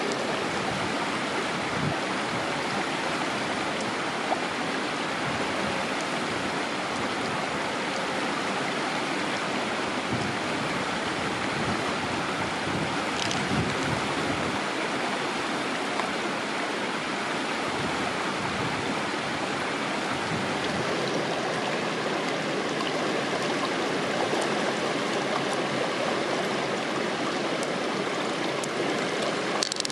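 Shallow stream running steadily, an even rush of water with no let-up, with now and then a faint small click.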